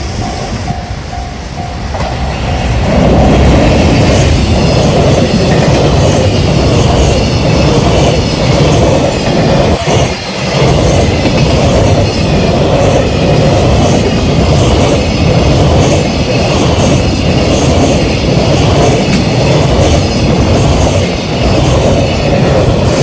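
JR Freight EF510 electric locomotive and a long train of Koki 100-series container wagons passing at high speed, loud from about three seconds in. The wheels on the rails make a continuous rush with rapid, regular clacks over the rail joints.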